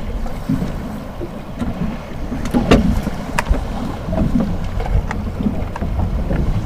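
Wind buffeting the microphone and choppy water against a fishing boat's hull, a steady low rumble, with a few sharp knocks near the middle.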